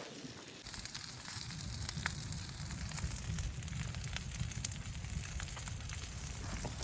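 Wood fire crackling: scattered sharp pops over a steady low rumble that starts about half a second in.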